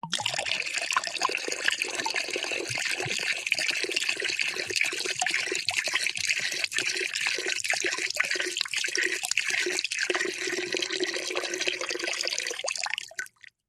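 Water poured in a continuous stream into a cup, splashing and gurgling steadily, then stopping near the end with a couple of last drips.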